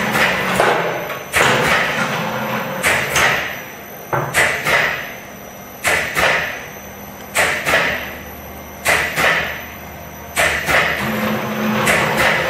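Sandorè New Magic biscuit extruder with MC60 automatic tray-loading unit cycling: a sharp double clack about every one and a half seconds, each followed by a short fading hiss, over a steady low machine hum.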